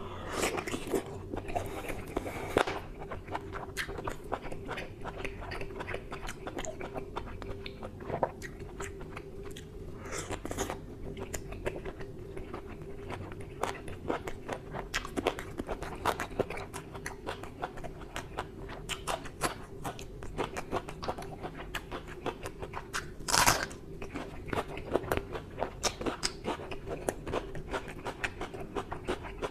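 Close-miked eating sounds of mutton curry with luchi: irregular wet chewing and smacking, with many small mouth clicks. One louder, longer burst comes about two-thirds of the way through, over a faint steady hum.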